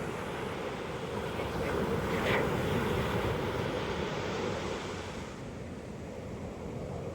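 Ocean waves breaking and washing up a beach: the surf swells to a peak about two seconds in, then eases off, with some wind on the microphone.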